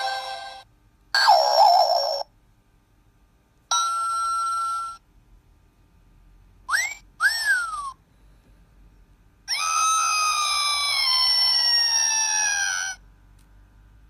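A novelty sound effects box plays a string of short, separate electronic sound effects through its small speaker, one for each press of its buttons. They include a steady tone about four seconds in, two quick whistles about seven seconds in (the second rising then falling), and a longer whistle that slides downward in pitch near the end.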